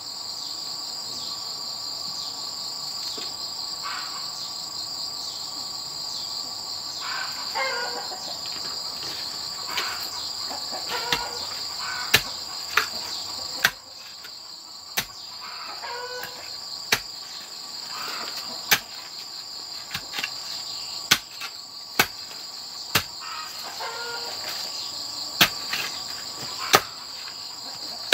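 A bamboo pole jabbed repeatedly into soil to dig a post hole, giving sharp knocks about once every second or so, more frequent from about a third of the way in. A steady high-pitched insect drone runs underneath.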